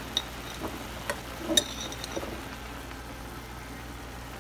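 A metal spoon clinking lightly against a cooking pot about four times in the first couple of seconds, over a steady low hum.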